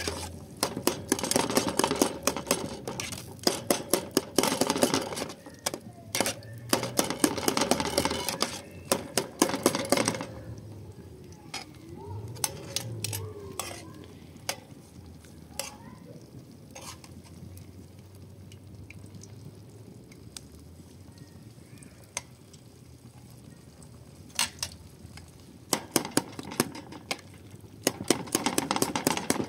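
A long-handled metal spoon stirring and scraping inside a metal cooking pot, giving rapid clinks and scrapes for about the first ten seconds and again near the end, with only scattered clinks in between.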